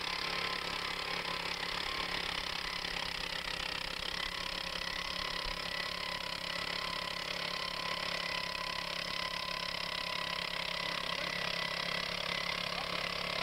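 Two-man gas-powered earth auger running steadily as it bores into the ground, its engine holding an even pitch throughout.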